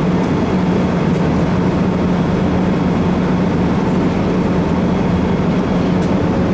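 Steady cabin noise of a jet airliner in flight: an even rush of engine and air noise with a low, steady hum underneath.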